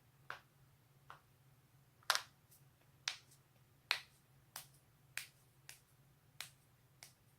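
A run of about a dozen sharp cracks and pops from human joints being cracked, coming irregularly at roughly one to two a second. The loudest are about two and four seconds in, and a few are only faint.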